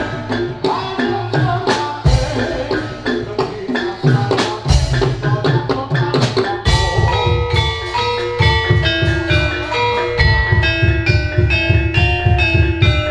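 Javanese gamelan music for a kuda lumping horse dance: struck drums under a melody of tuned metallophones. About halfway through, the melody becomes a run of clear, separate stepped notes over a steady low drum pulse.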